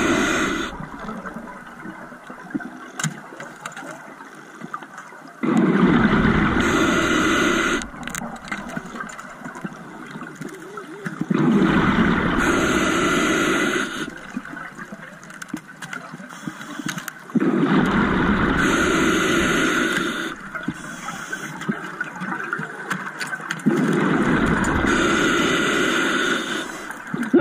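Scuba diver breathing underwater through a regulator: four long rushes of exhaled bubbles about six seconds apart, with quieter inhalations between.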